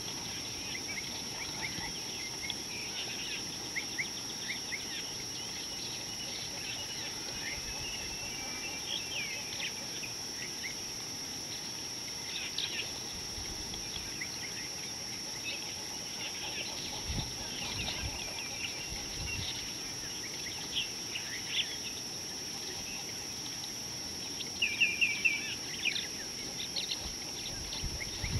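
Small wild birds chirping and calling in many short notes, over a steady high-pitched drone, with a burst of louder chirps near the end.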